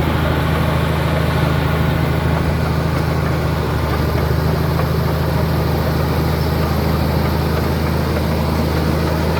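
Komatsu D83E bulldozer's six-cylinder turbocharged diesel engine running steadily with a deep, even drone.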